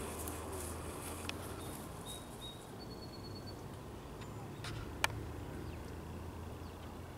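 Outdoor yard ambience: a steady low hum, a few faint short bird chirps about two to three seconds in, and a single sharp click about five seconds in.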